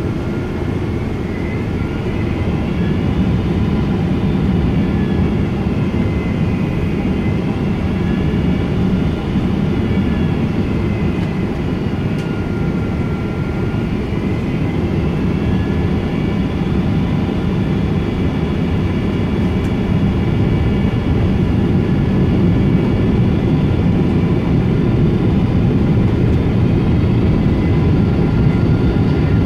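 Cabin noise of a Boeing 777-200 on approach: a steady low rumble of engines and airflow, with several high whining tones that slowly rise and fall in pitch.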